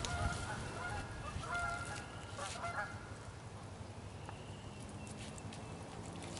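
Several short honking calls, like geese, in the first three seconds.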